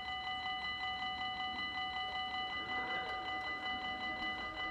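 Dutch level-crossing warning bells ringing in a fast, even rhythm, the signal that a train is approaching and the barriers are coming down. A faint low hum joins past the middle.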